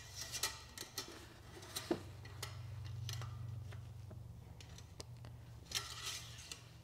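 Oil dipstick on an LS3 V8 being pulled and pushed back into its tube: scattered light metallic clicks and rattles, bunched near the start and again near the end, over a steady low hum.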